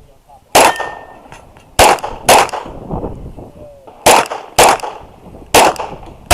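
Glock 34 9mm pistol firing six shots at an uneven pace, including two quick pairs about half a second apart, each shot ringing out briefly.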